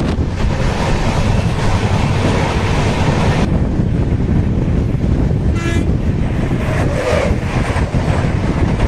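LHB express passenger train running along the track, a steady loud rumble and rushing noise. The hiss eases a little about three and a half seconds in, and a short high tone sounds about halfway through.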